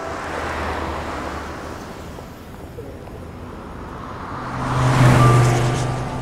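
Traffic on a city street: a car passes with a rushing sound that swells up and fades about five seconds in, after a fainter pass just after the start.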